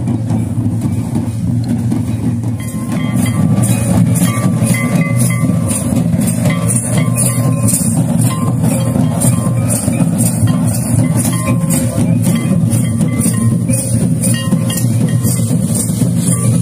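Music for Santali traditional dancing, led by drums: a dense, steady low drumming with a regular beat of sharp strikes, a little over two a second, that comes in about three seconds in, and short pitched notes over it.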